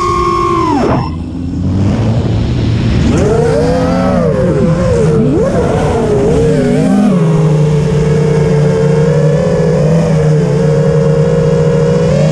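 FPV quadcopter's brushless motors and propellers whining, the pitch following the throttle: high at first, dropping sharply about a second in, wavering up and down through a few seconds of manoeuvring, then settling into a steadier lower tone.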